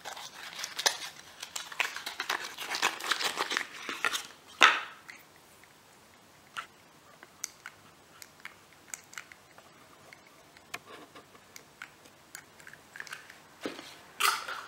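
Small cardboard box and packaging being opened and handled, a close crinkly rustling that ends in a sharp click about four and a half seconds in. Then mostly quiet, with scattered light clicks and taps, and more rustling just before the end.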